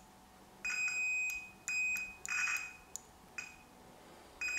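Multimeter continuity beeper sounding a steady high beep that cuts in and out several times, in irregular stretches of under a second, as the test probes slip on and off the wires of a 3D printer's endstop cable. The beep confirms the endstop wiring is continuous; the breaks come from unsteady probe contact, not from the cable.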